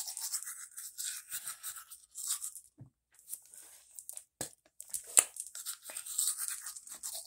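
Manual toothbrush scrubbing teeth: stop-start bursts of quick bristle-on-teeth scrubbing. Two sharp knocks a little after the middle, the second the loudest.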